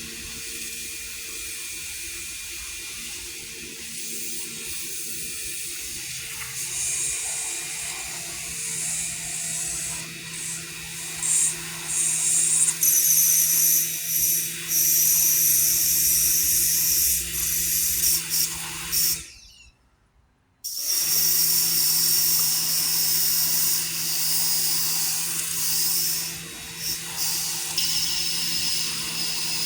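Pressure washer running: a steady hum under the hiss of the water jet, which comes and goes in bursts. The sound cuts out completely for about a second roughly two-thirds of the way through.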